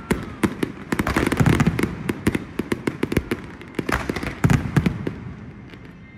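Aerial fireworks going off in a rapid, dense string of bangs and crackles, with deeper booms among them, thinning out near the end.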